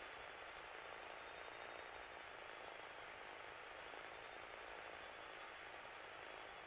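Steady, faint hiss of a light aircraft's cockpit intercom audio feed, with a faint high whine wavering through it.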